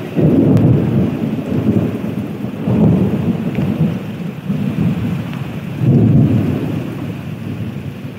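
Heavy rain pouring down hard, with a deep rumble that swells up loudly three times, each for a second or two.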